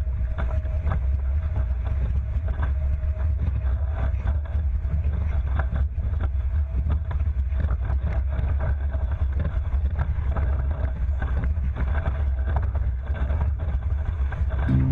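Hobie 20 catamaran at about 21 mph, a steady low rumbling of rushing water and spray against the hulls with wind on the microphone, sounding like an engine. Short splashes tick through it.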